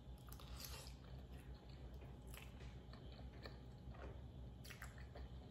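A person chewing a mouthful of creamy pasta close to the microphone, with a few soft, scattered mouth clicks.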